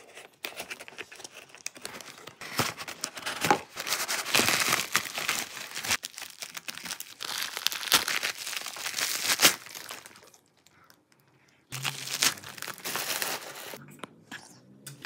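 Packing tape on a cardboard box being cut and torn, then clear plastic wrapping crinkled and pulled away by hand: a dense run of crinkling and tearing, with a short pause about ten seconds in, followed by more crinkling.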